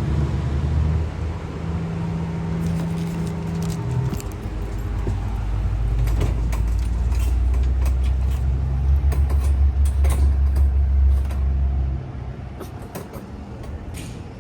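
A car running, a steady low hum that grows louder through the middle and drops off about two seconds before the end, with scattered sharp clicks and rattles over it.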